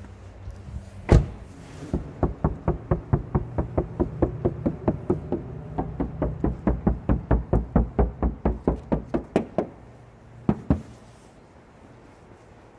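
Knocking by hand on the bare steel door panel of a 2013 Kia Rio, before any sound-deadening mat is applied: a test of how the undamped door sounds. There is one sharp bang about a second in, then a quick, even run of knocks at several a second that stops at about nine and a half seconds, and two last knocks shortly after.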